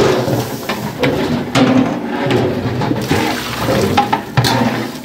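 Liquid rushing and sloshing in a large cooking pot, with scattered metal knocks and clatter.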